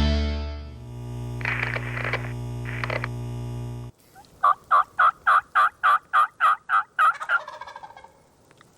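Intro music ends about four seconds in. Then comes a run of about eleven turkey yelps in a quick, even rhythm, roughly three a second, trailing off near the end.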